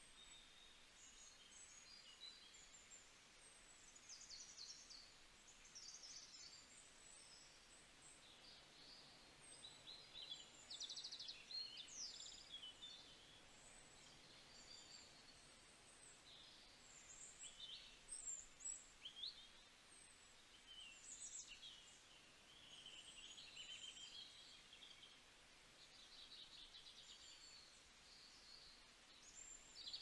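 Faint birdsong: many short, high chirps and trills from several small birds, scattered throughout and coming in busier clusters now and then.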